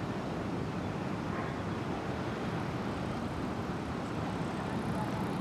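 Steady low ambient rumble with no distinct calls or other events.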